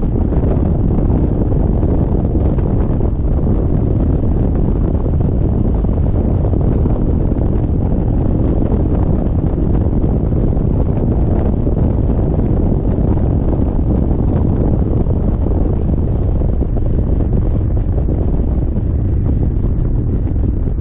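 Steady, loud wind buffeting the microphone of a motorcycle riding at speed, a dense low rumble that masks any engine note.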